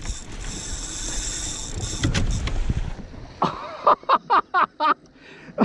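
A hooked tarpon thrashing and splashing at the surface right beside a kayak, with a steady high hiss of water and reel over it. About three and a half seconds in comes a rapid string of short, loud excited vocal bursts.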